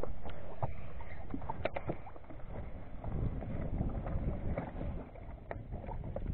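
Wind buffeting the microphone over open water, an uneven low rumble that swells and eases, with scattered light clicks and knocks from handling the fishing rod and lure.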